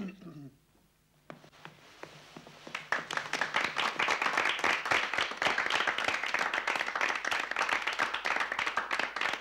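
Audience applauding: scattered claps about a second in, swelling to full, steady applause by about three seconds.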